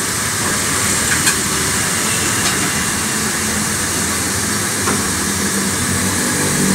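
Steady hissing roar of a gas burner flame under a street-cart wok, with a few light clicks of utensils.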